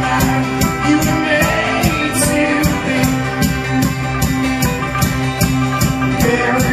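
Folk-rock band playing live: an instrumental passage with held chords over a fast, steady beat of about four strokes a second.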